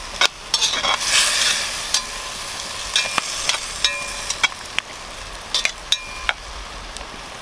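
Hot oil sizzling in a cast-iron Dutch oven while food is stirred, with a metal utensil clinking and ringing against the iron pot now and then. The sizzle is loudest in the first couple of seconds.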